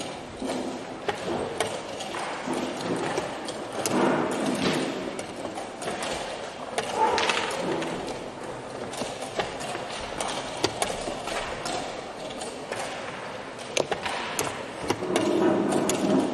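Wooden chess pieces set down on a wooden board and a digital chess clock pressed during a blitz game: scattered sharp clicks and knocks, over background voices.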